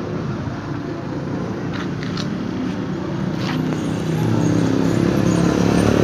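Motor vehicle engine running, a steady low hum that grows louder toward the end, with a few faint clicks.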